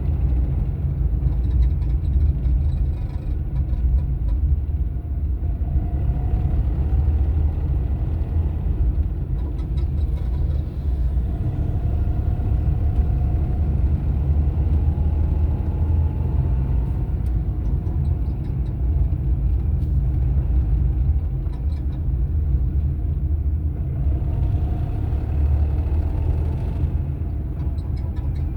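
Car engine running with a steady low rumble and a faint whine that wavers slightly in pitch now and then: the engine noise the owner is reporting as a fault.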